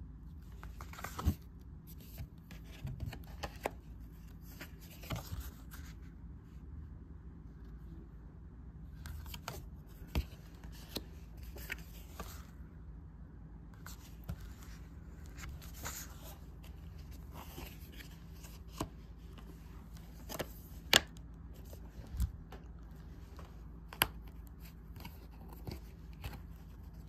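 Postcards and cardboard packaging being handled: scattered light taps, clicks and paper rustles, a few sharper taps among them, over a faint steady hum.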